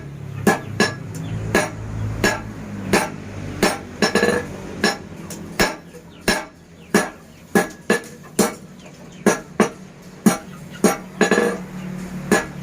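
Blacksmith's hammer striking hot iron on an anvil in a steady rhythm of about one and a half blows a second, each blow ringing metallically, a few of them coming in quick pairs.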